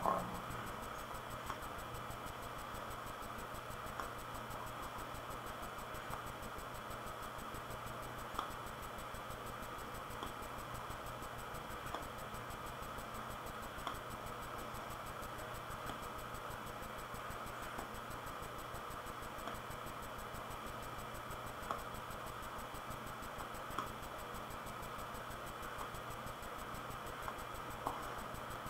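Soft, short clicks of a man puffing on a meerschaum tobacco pipe, about one every two seconds at slightly uneven spacing, over a steady hiss and low hum of room noise.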